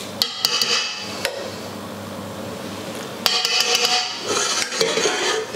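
Metal spoon clinking and scraping against a frying pan and a stainless steel pot as tomato sauce is spooned onto drained pasta. There are a few sharp clinks near the start and a denser run of clinks from about three seconds in.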